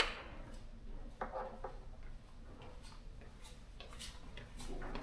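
Scattered light clicks and ticks, led by one sharper click at the start, with a brief faint voice about a second in.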